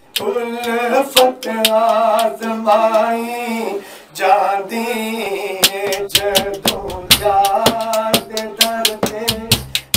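Man singing a Punjabi Sufi devotional song (kalam) into a microphone, with long held, wavering notes. He is accompanied by a large metal-shelled drum beaten by hand. The drum starts with a few single strokes and breaks into quick, dense beating about halfway through.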